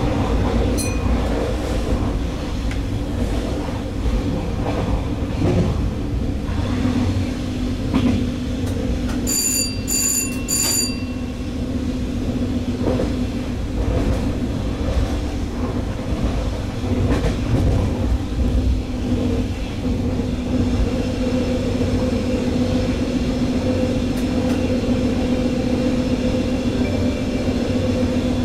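Stadler GTW 2/6 diesel multiple unit under way, heard from the driver's cab: a steady diesel drone over the low rumble of the wheels on the rails. Three short high-pitched beeps sound close together about ten seconds in.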